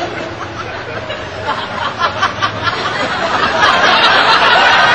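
Laughter from many people, rippling in short bursts and swelling louder about three and a half seconds in.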